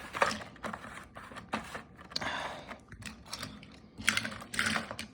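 Irregular light clicks and taps with a couple of short rustles as carded Hot Wheels die-cast cars in plastic blister packs are handled and set down on a surface.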